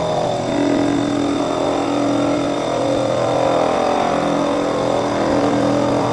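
Cleaning machine running steadily: a constant motor hum with a thin high whine over it.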